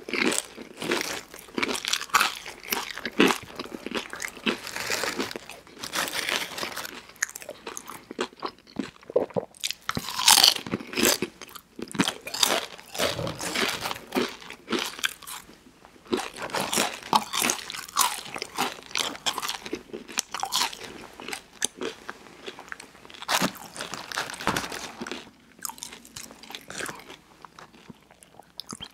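Close-miked crunching and chewing of crisp snack food, with loud, irregular bites, thinning to quieter chewing near the end.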